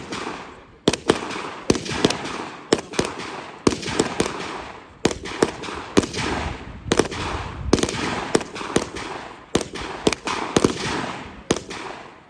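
Competition gunfire: a fast string of single shots, about two or three a second, each followed by a trailing echo.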